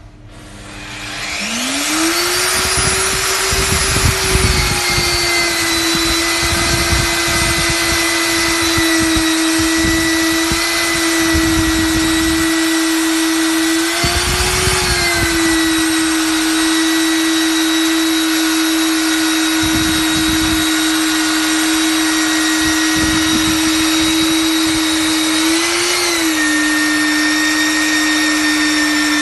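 MD40 magnetic drill press's 1100 W motor starting up about a second in and rising to a steady high whine. Rough rumbling comes and goes under it, and the pitch briefly wavers twice.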